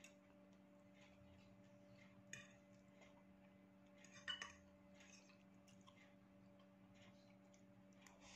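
Near silence with a few faint clinks of a metal fork against a ceramic plate as noodles are twirled, the loudest about four seconds in, over a steady low hum.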